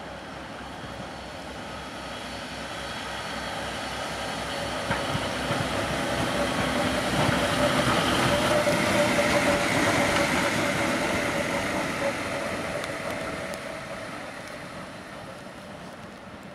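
Center-cab diesel switcher locomotive passing slowly at close range, its engine running with a steady hum and a low regular pulse. The sound swells to a peak about halfway through, then fades as it moves away.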